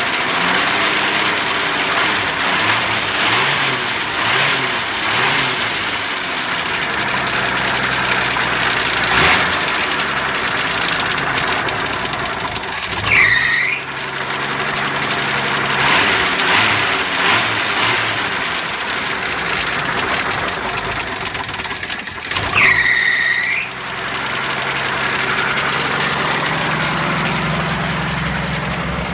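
AMC 258 (4.2 L) straight-six in a 1981 Jeep CJ7 running and being revved up and down, with a knock that the owner takes for the beginning of rod knock from a spun rod bearing. Two brief high-pitched squeals stand out, one about halfway through and one about three quarters through.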